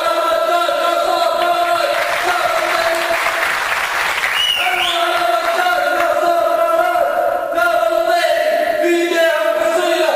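Men's voices chanting a sung Arabic poem in long, held notes. Near the middle they give way to a burst of applause-like noise, with a short rising-and-falling whistle, before the chanting resumes.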